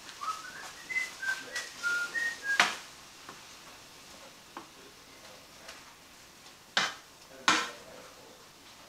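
A person whistling a short run of about eight quick notes, followed by a few brief scraping clatters from the frying pan as the stir fry is worked.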